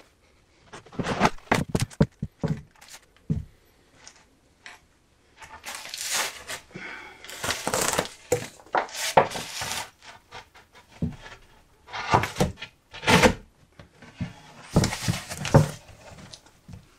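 Timber boards and hand tools being handled: irregular knocks, thuds and clatter, with a few short stretches of scraping as a board is fitted against the framework and checked for size.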